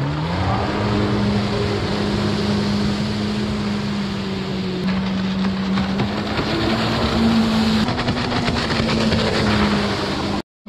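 Yamaha WaveRunner engine climbing in pitch in the first half second, then holding a steady high-speed note over rushing water and wind. The sound cuts out briefly near the end.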